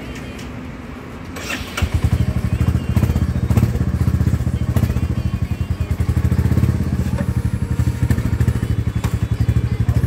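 Royal Enfield Classic 350's single-cylinder engine starting about two seconds in, then idling with an even, rapid beat.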